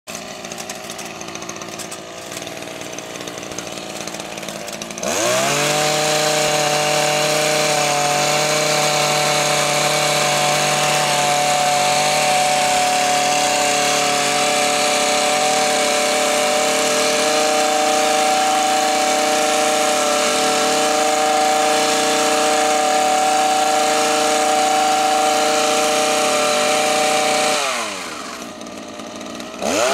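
Two-stroke petrol hedge trimmer idling, then revved up sharply about five seconds in and held at full throttle while cutting the hedge. Near the end it drops back to idle, then revs up again just at the close.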